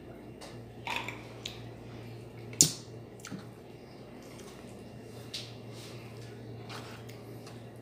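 Close-up wet, sticky squishes and clicks of eating canned sardines in tomato sauce with rice by hand, a sharper smack about two and a half seconds in, over a low steady hum.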